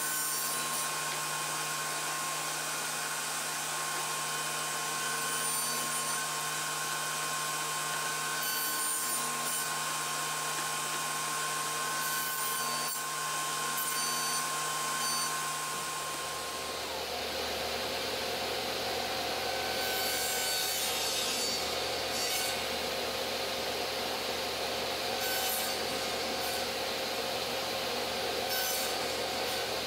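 Table saw running steadily while short wooden cabinet-door frame parts are pushed over the blade on a small crosscut sled, cutting tenons on their ends. The steady tone of the saw changes and a low hum comes in about halfway through.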